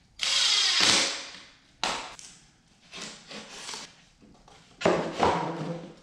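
Cordless drill/driver runs for about a second, fastening the particleboard sofa frame. A few shorter knocks and scrapes of the frame pieces being handled and fitted follow.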